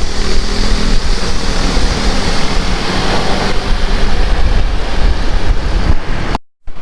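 Wind buffeting the microphone while riding a bicycle: a loud, continuous rushing rumble. It cuts off abruptly near the end.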